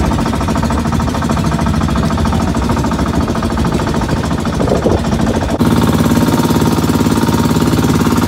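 A bangka outrigger boat's engine running under way, a loud, rapid, even chugging. The tone shifts slightly about five and a half seconds in.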